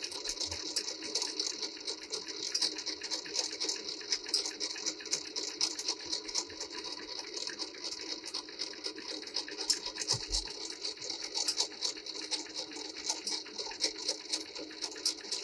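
Linotype machine running, its distributor screws turning, giving a steady, fast, light mechanical clatter of many fine ticks.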